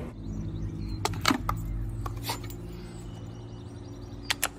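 A dog drinking at a step-on paw-pedal dog water fountain: a few short wet clicks in quick runs, about a second in, about two seconds in and again near the end, over a steady low hum.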